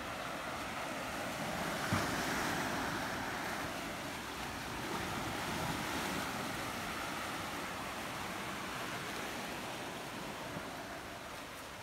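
Small waves washing and breaking among boulders, the surf swelling and easing in slow surges, with one short knock about two seconds in.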